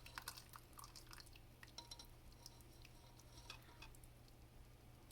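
Near silence with faint, scattered light clicks and taps, a few more of them in the first second.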